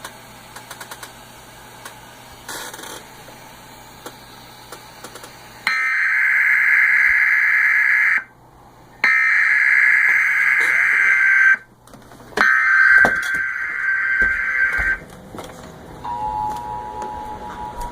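Emergency Alert System SAME header: three bursts of screeching digital data tones, each about two and a half seconds long, after several seconds of faint background. Near the end the steady two-tone EAS attention signal begins, signalling that the alert message is about to follow.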